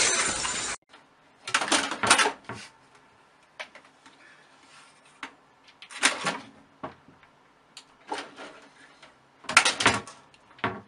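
A loud burst of noise that cuts off abruptly under a second in, then a cat's claws and paws scrabbling and tapping against a computer tower case in short clattering bursts about every second.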